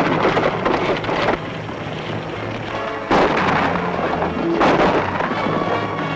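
Orchestral background score with steady held low notes, overlaid by loud rumbling noise that surges at the start, about three seconds in, and again a little later.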